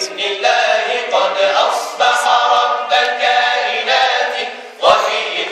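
Male group singing tawashih, Islamic devotional chant, unaccompanied, in long held notes, with a new phrase starting every second or so.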